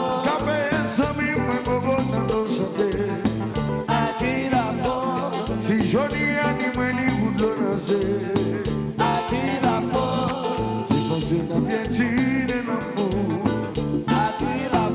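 Live Haitian kompa band playing a dance groove with a steady beat: a male lead singer over electric guitars, bass, keyboards, drum kit and congas.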